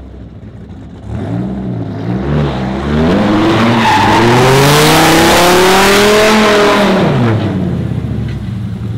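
Dodge Viper's V10 revving in short blips, then held at high revs for about four seconds while the rear tyres spin and screech through a smoky donut. The revs fall away about seven seconds in.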